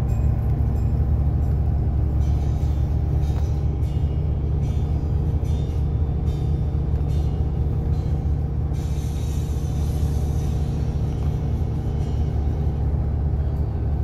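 Steady low rumble of a moving road vehicle's engine and tyres, heard from inside the cabin.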